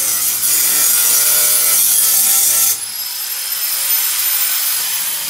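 Angle grinder working on a school bus's sheet-metal side panel: a loud, harsh grinding hiss, then about three seconds in the disc comes off the metal and a high, steady whine of the tool spinning freely takes over.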